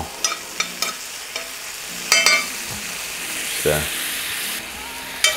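Diced pancetta sizzling in a cast iron pan, with a metal spoon scraping and clicking against the pan as it is stirred; one click about two seconds in rings briefly.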